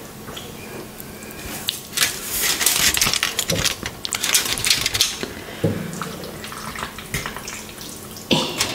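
Hands handling sauced pasta and meatballs on a sheet of aluminium foil: irregular crackling and wet squishing, busiest for a few seconds in the middle, with a few soft knocks.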